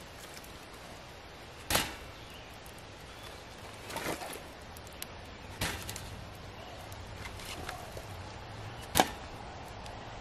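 Split firewood logs knocking as they are laid one by one onto a burning wood fire in a portable fire pit: four sharp knocks, the loudest about two seconds in and near the end.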